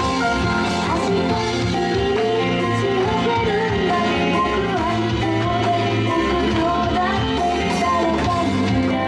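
Recorded pop song played back over a live venue's speakers: a sung vocal melody over a full backing track with guitar.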